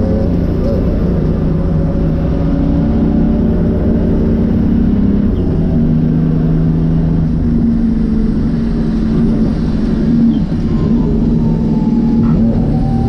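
Nissan RD28 2.8-litre straight-six diesel running hard under race load, heard from inside the stripped cabin; its engine note holds steady pitches that step up and down several times over a constant deep rumble.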